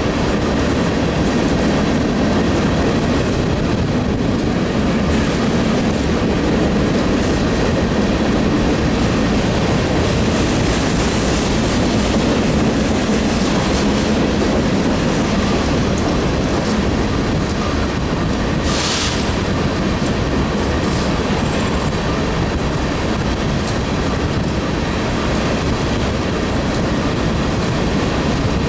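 KCS grain train of covered hopper cars rolling past, a steady loud noise of steel wheels on rails. A brief high hiss about two-thirds of the way through.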